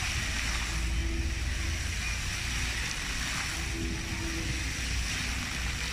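Floor fountain's rows of ground-level water jets spraying and splashing back onto the paving in a steady hiss, with a low rumble underneath.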